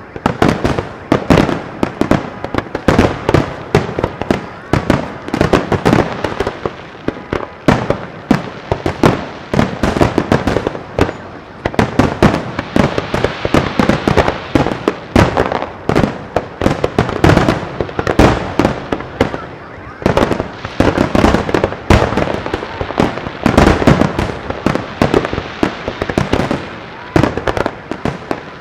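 Aerial fireworks show: a dense, continuous string of shell bursts, booms and crackles going off one after another, several a second.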